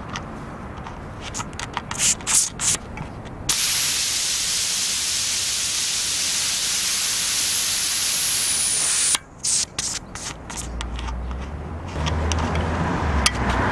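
Air hissing steadily out of a Maxxis Minion FBR fat bike tyre through its Presta valve as a fingertip presses the valve tip, letting the tyre down, for about five seconds before it stops abruptly. Small clicks of fingers handling the valve and its lock nut come before and after it.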